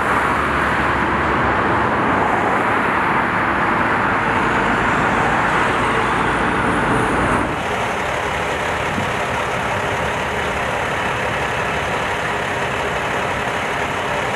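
Steady road traffic noise, a continuous rush of passing vehicles, dropping abruptly a little past halfway.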